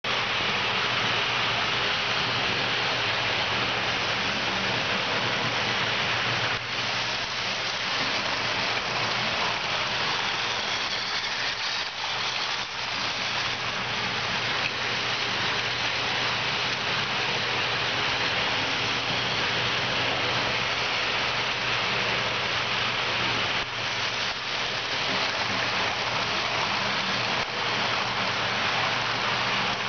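Model trains running on a layout: a steady rolling rattle of metal wheels on the track, with a low electric motor hum underneath.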